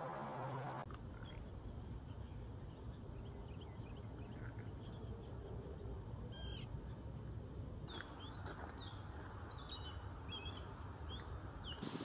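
Insects shrilling a steady high-pitched note, fainter after about 8 seconds in. Short, faint bird chirps come in here and there, more of them near the end, over a low background rumble.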